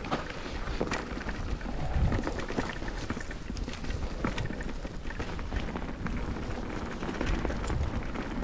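Electric mountain bike rolling downhill over a rough, stony trail: tyres crunching on loose gravel, with many small knocks and rattles from the bike, over low wind rumble on the camera microphone.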